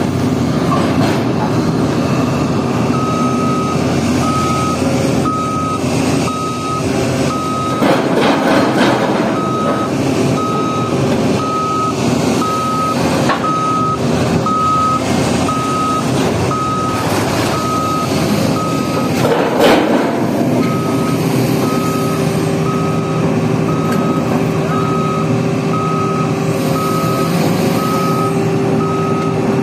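Reversing alarm on a heavy construction vehicle, beeping about once a second over its engine running steadily, with a few louder clanks of machinery.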